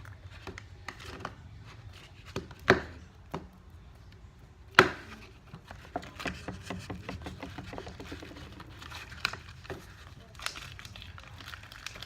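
Hands kneading and stretching sticky glue-and-borax slime: irregular small clicks and crackling pops. Two sharp, louder snaps come about three and five seconds in.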